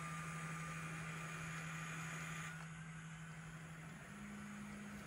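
A steady low electric hum with a faint hiss, stepping up slightly in pitch about four seconds in.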